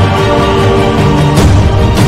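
Loud intro theme music: sustained chords over a pulsing bass beat, with a brief sweeping accent about one and a half seconds in.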